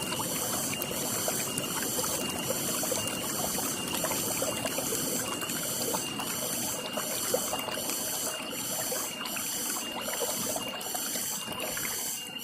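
Water trickling and flowing steadily, with small splashes. Over it runs an evening chorus of calling animals: a high pulsing chirp repeats about one and a half times a second, and a fainter high piping comes in short regular dashes.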